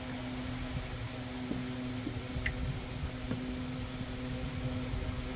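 Steady mechanical hum with a held low tone, over which a few faint clicks and rubbery squeaks come as a rubber battery-terminal cover is worked and pushed out by hand.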